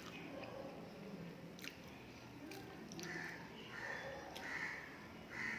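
A person eating rice and curry: chewing and wet mouth sounds, with a few sharp clicks and a run of short, raspy sounds in the second half.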